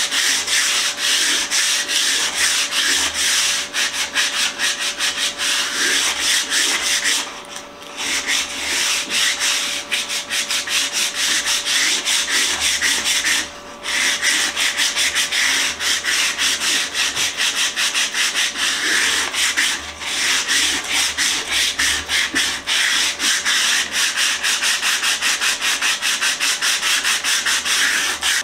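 Hand sanding an antique stitching horse's old wooden leg with a sanding pad: quick, continuous back-and-forth rasping strokes, a light sanding to clean off dust and dirt. The strokes stop briefly three times.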